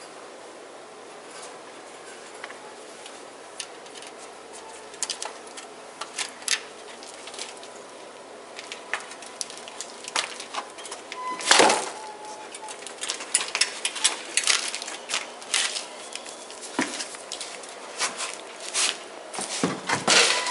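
Pet ferrets moving about and playing: scattered clicks, taps and knocks over a low hiss, getting busier about halfway through, with one louder knock near the middle.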